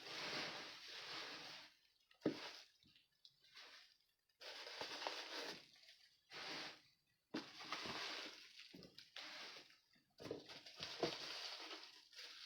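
Faint rustling and crinkling of packing material being handled while an item is unwrapped, in a series of bursts a second or two long with short pauses and a few small knocks.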